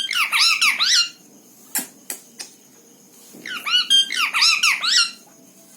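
Pet parrot squawking in two quick runs of shrill, rising-and-falling calls, with a few short clicks in the pause between them.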